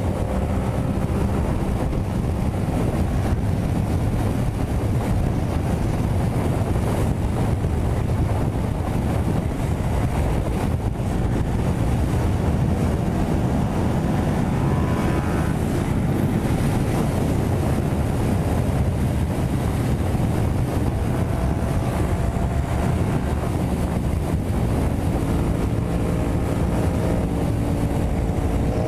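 Wind rushing over the microphone at highway speed, with a Yamaha MT-07's parallel-twin engine running underneath in high gear. The engine note climbs slightly near the end.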